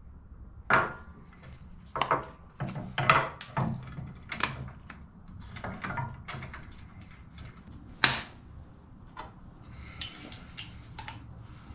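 Irregular clinks and knocks of metal bolts and hand tools being picked up, set down and handled while fitting a motorcycle crash bar, with a cluster of small high ticks near the end.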